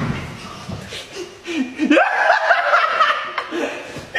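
Human laughter: snickering in quick, high-pitched repeated bursts from about halfway through, after a few lower vocal sounds.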